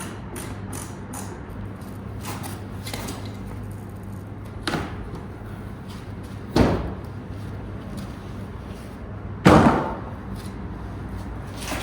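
Hand work on a car in a garage: a few light clicks, then three separate clunks a couple of seconds apart, the last the loudest, over a steady low hum.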